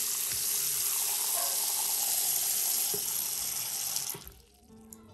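Water from a bathroom sink faucet running steadily into the basin and splashing down the drain, with a few faint clicks; the flow stops about four seconds in and guitar music starts near the end.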